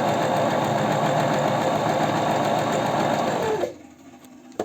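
Janome Sewist 509 sewing machine running steadily, stitching a test seam after repair. It stops about three and a half seconds in, its note dropping as it winds down.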